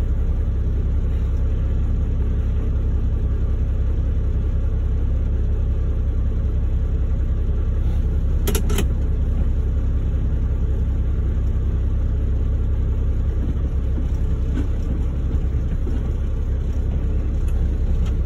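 Diesel engine running steadily with a low rumble, heard from inside a log truck's cab, with a brief sharp double click about eight and a half seconds in.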